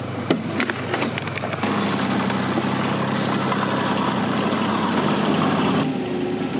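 Volvo EC20 mini excavator's diesel engine idling steadily, with a few sharp knocks and clicks in the first second and a half.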